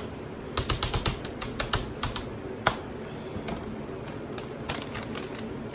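Clusters of quick, light clicks and taps as shredded cheese is spread by hand or utensil over a pan of mac and cheese, with a busy run of clicks near the start, a few single taps, and another run near the end.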